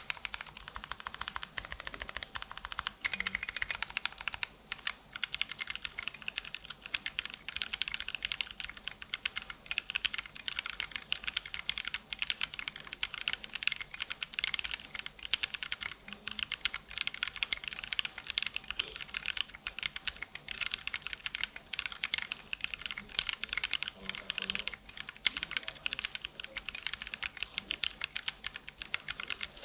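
Continuous rapid typing on a custom 60% mechanical keyboard: lubed and filmed Durock T1 tactile switches on a polycarbonate plate in an aluminium case, under ABS double-shot cubic-profile keycaps.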